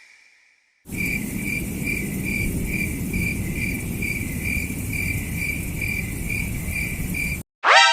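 Crickets chirping in a steady rhythm, a little over two chirps a second, over a low hiss; this is the stock 'awkward silence' cricket sound effect. It starts about a second in and cuts off suddenly near the end, where a short rising swoop begins.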